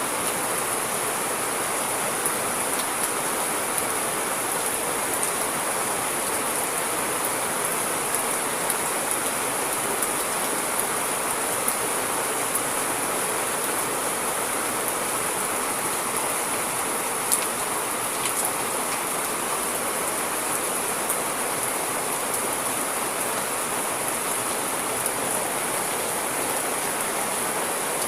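Steady rain falling, an even hiss with scattered drops ticking on a surface and one sharper drop tick about 17 seconds in.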